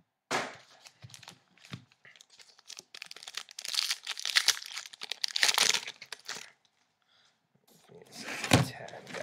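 A trading-card pack wrapper being torn open and crinkled by hand, in irregular crackling bursts, loudest in the middle, with a sharp snap near the end.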